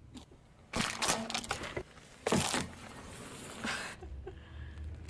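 A car tyre rolling over a pile of small brittle brown pieces, crunching and cracking them in bursts about a second in and again around two and a half seconds, with a shorter crackle near four seconds.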